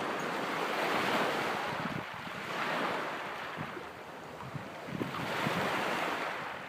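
Small waves washing onto a pebbly beach, the surf noise swelling and falling back about three times, every two to three seconds, with some wind on the microphone.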